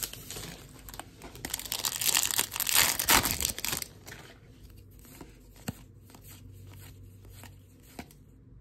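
Plastic wrapper of a Topps baseball card pack torn open and crinkled, loud for about two seconds starting a second and a half in. Afterwards come quiet flicks and slides of the cards being thumbed through.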